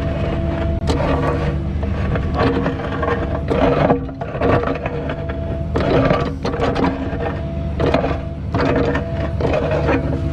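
A diesel machine engine running steadily, with repeated scraping and clanking of metal on dirt or stone coming in irregular bursts about once a second.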